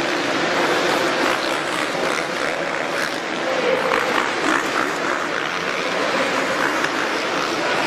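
Arena crowd noise mixed with dirt-bike engines running on the supercross track. One engine note stands out briefly about three and a half seconds in.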